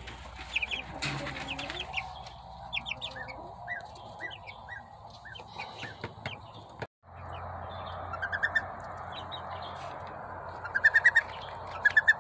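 Baby chicks peeping, short high chirps scattered one after another. After a sudden break about seven seconds in, loud quick runs of four or five high peeps come a few times over a steady background hiss.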